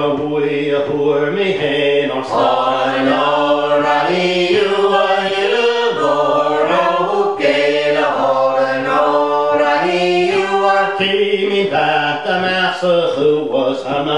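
A small group of men and women singing a Gaelic song unaccompanied, the voices together on the chorus vocables, the notes held and changing in a steady, unbroken line.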